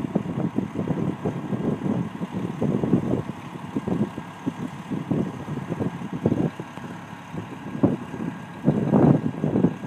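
Hydraulic pump motor of a box truck's lift gate running as the steel platform is raised, a faint steady whine under an uneven, gusty low rumble.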